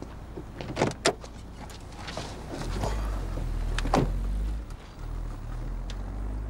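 Car door being worked as someone climbs into the front seat: sharp clunks about a second in and again about four seconds in, with lighter knocks and rustles between them. A low rumble runs underneath.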